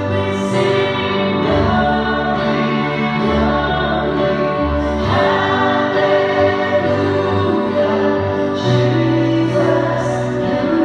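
Christian worship song sung as a duet, voices held on long notes over sustained instrumental chords.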